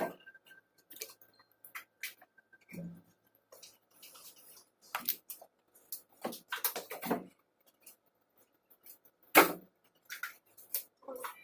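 Scattered, irregular clicks and knocks of hand tools and engine parts being handled during an engine teardown, the loudest knock about nine seconds in.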